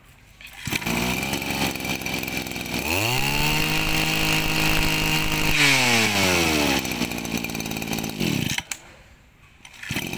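Mitsubishi TL201 20cc two-stroke brush cutter engine starting and idling, then revved up to a steady high speed for about three seconds and let back down to idle. It stops about a second and a half before the end and starts again just at the end.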